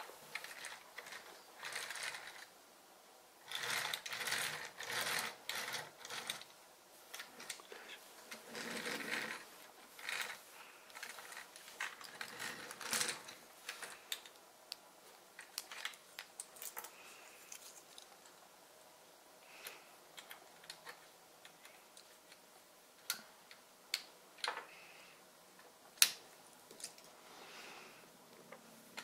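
Plastic building-brick toy fire truck being handled: bursts of rattling, ratchet-like clicking in the first half, then scattered sharp single clicks of small plastic parts being fitted, the loudest near the end.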